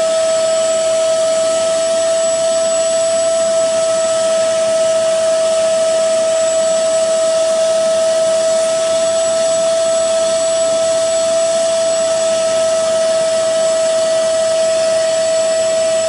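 Portable carpet spot cleaner's suction motor running steadily, drawing air through its hose and hand tool. It makes a constant high whine over an even rush of air.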